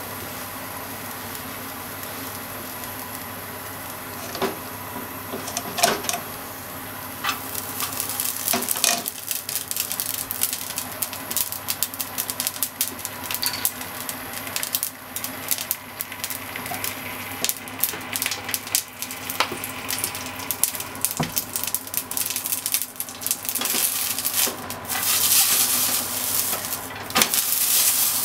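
Spaghetti frying in an oiled nonstick frying pan over a gas burner: a steady hiss at first with a few knocks, then crackling sizzle builds after several seconds and runs on. Near the end the sizzle grows louder and busier as tongs stir and toss the noodles.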